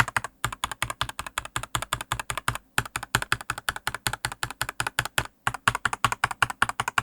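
Typing on a Dareu A87 hot-swap mechanical keyboard: fast, even keystrokes with a few short pauses. The keystrokes sound solid, with no hollow sound from the case, which is damped with silicone dampening on the plate and in the case.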